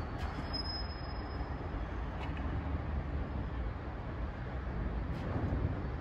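Train of Sorefame passenger coaches rolling slowly through a rail yard: a low, steady rumble with no distinct clanks or horn.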